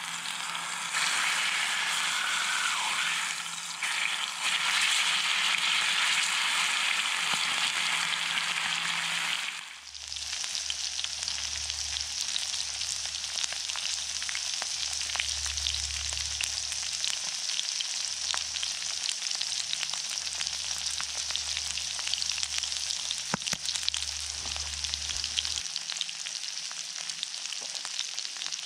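Steak frying in hot oil in a cast-iron skillet: a loud sizzle for the first ten seconds or so, then a steadier sizzle with many small pops. A low rumble runs underneath from about ten seconds in.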